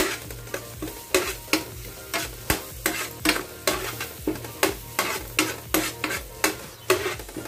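Spoon stirring and scraping in a non-stick frying pan, about two to three strokes a second, over the sizzle of ginger-garlic paste, curry leaves and green chillies frying in butter.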